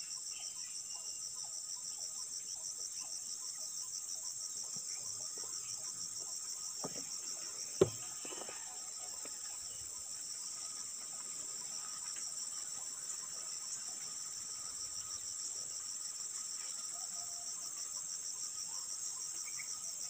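Steady chorus of forest insects: a continuous high, shrill drone with a fast, even pulse running through it. A single sharp click or knock sounds about eight seconds in.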